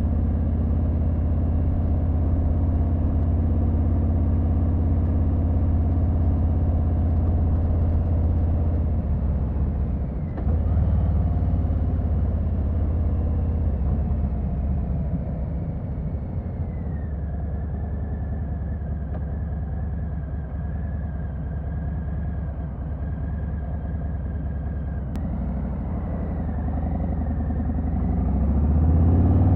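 Harley-Davidson Sport Glide's Milwaukee-Eight 107 V-twin engine running steadily. It dips briefly about ten seconds in, then settles gradually to a lower speed and picks up again near the end.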